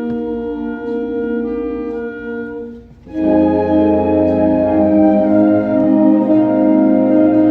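Instrumental ensemble music playing held chords; the sound drops away briefly about three seconds in, then comes back louder with a fuller chord, brass to the fore.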